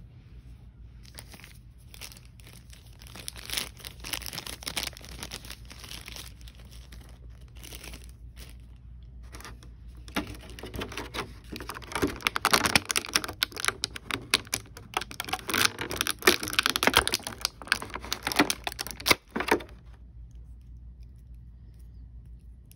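Thin clear plastic blister packaging crinkling and clicking as it is handled and a small toy figure is pried out of its tray. The crackling grows louder about halfway through and stops a few seconds before the end.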